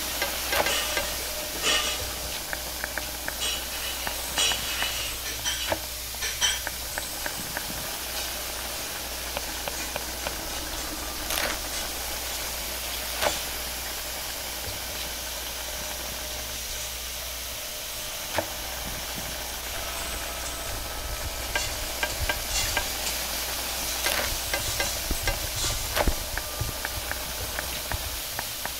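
Wok cooking over a high-flame gas wok burner: the burner's steady hiss with food sizzling in the wok. Quick runs of metal clanks and scrapes against the steel wok come in the first several seconds and again from about twenty seconds in.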